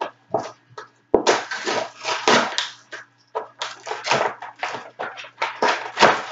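Cardboard toy packaging being ripped open by hand, in a run of irregular tearing and crinkling noises. It starts in short bits and gets denser from about a second in.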